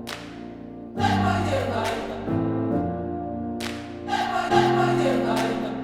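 Background music: a choir singing held chords over instruments, with a sharp accent at each chord change every second or so.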